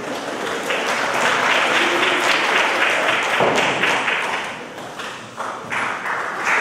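Audience applauding: a dense patter of many hands clapping, which dips briefly about five seconds in and then picks up again.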